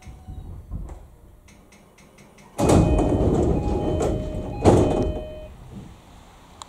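Passenger sliding doors of an E233-5000 series commuter train opening at a station stop. A quick run of clicks comes first, then a sudden loud rush about two and a half seconds in, with the door chime repeating over it and a second loud push near the end of the opening, fading out after about three seconds.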